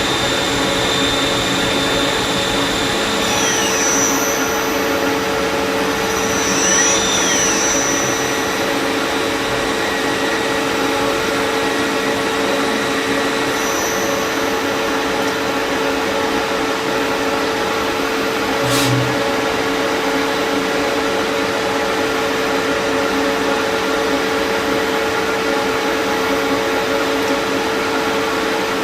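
Lathe running steadily with a constant hum and a high whine. The whine drops in pitch about three seconds in and swoops up and back down a few seconds later, and a single sharp click comes about two-thirds of the way through.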